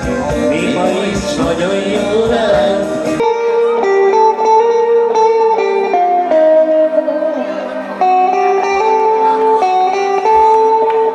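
Live band music from a stage PA: the full band with drums and bass plays for about three seconds, then the drums and bass drop out. A melody of held notes carries on over a lighter backing.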